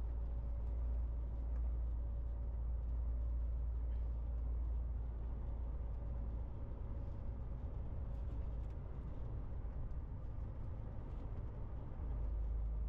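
MAN TGX 18.470 truck's straight-six diesel and road noise heard from inside the cab while driving: a steady deep rumble with a faint steady tone over it. The rumble eases about six and a half seconds in and comes back near the end.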